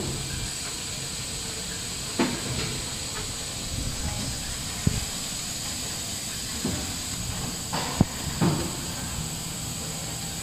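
Injection moulding machine and its overhead take-out robot arm at work: a steady hiss broken by several sharp knocks and clunks, with a low hum near the start and again near the end.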